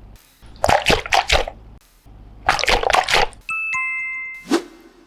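Two bursts of quick, splashy, water-like crackling, then a two-note descending ding-dong chime about three and a half seconds in, followed by a short voiced sweep.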